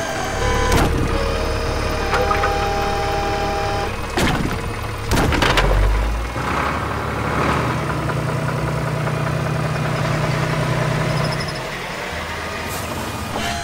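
Cartoon sound effect of an excavator's engine running steadily, with several sharp knocks as broken wooden barn boards are loaded onto a trailer.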